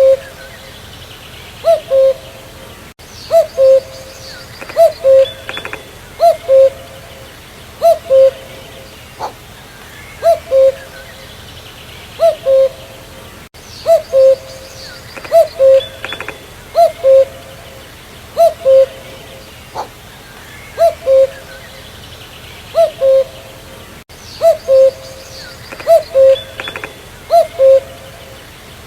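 Common cuckoo calling its two-note 'cu-coo' over and over, a higher note dropping to a lower one, about once every one and a half to two seconds. Faint chirps of other birds sit behind it.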